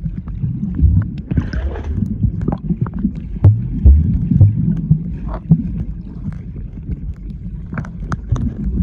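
Muffled underwater sound from a submerged camera: a low churning rumble of moving water with irregular dull thuds and small clicks as swimmers kick and paddle close by.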